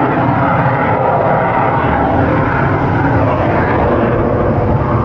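A fixed-wing aircraft flying past, its engine noise loud and steady.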